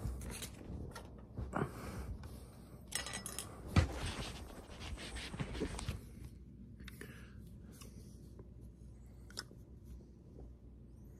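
Handling noise from moving the phone and the plastic yogurt cup: rustling and scraping with scattered clicks, a sharp knock about four seconds in, and only faint clicks after about six seconds.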